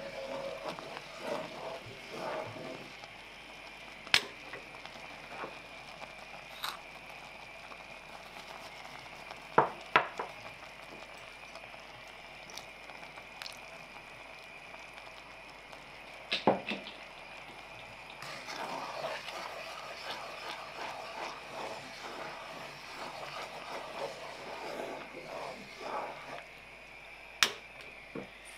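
Cream sauce simmering in an enamelled cast-iron pot, with a steady faint hiss underneath. It is stirred with utensils at the start and again in the second half, with a few sharp clicks of a utensil against the pot.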